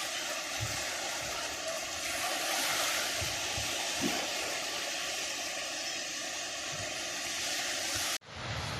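Steady rushing noise that cuts off suddenly near the end, followed by wind buffeting the microphone.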